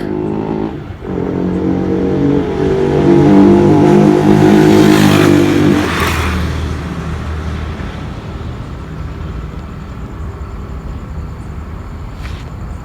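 Yamaha R15 motorcycle with a K&N aftermarket air filter passing by at speed: its single-cylinder engine grows louder, drops in pitch as it passes about six seconds in, then fades away.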